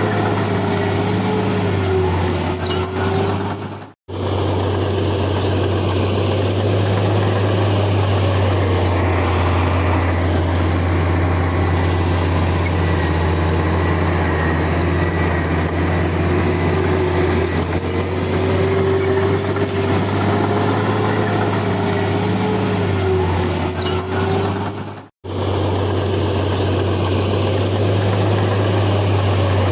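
Heavy diesel engine of a bulldozer running steadily under load, with a higher whine that wavers in pitch. The sound cuts out completely for an instant twice, about four seconds in and near the end.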